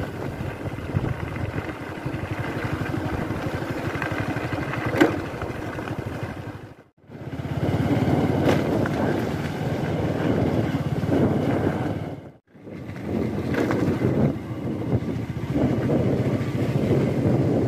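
Motorcycle engine running steadily while riding along. It breaks off for a moment twice, about seven and twelve seconds in.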